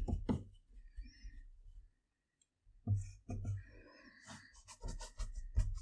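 Paintbrush tapping and scraping against a palette as watercolour paint is picked up and mixed: a few light taps, a short pause, then a run of taps and brushy scrapes.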